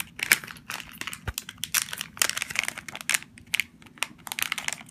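Plastic Lego Minifigures blind-bag packet being crinkled and pulled open by hand: a dense, irregular run of crackles.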